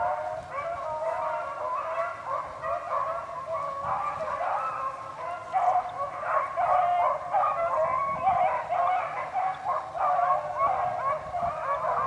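A pack of beagles in full cry on a rabbit's trail: many overlapping bays and barks at different pitches, growing louder about halfway through.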